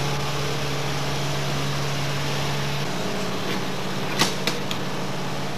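Refrigerated delivery truck running with a steady low hum that shifts in pitch about three seconds in. Near the end come two sharp metallic clacks as the truck's cargo door latch is worked.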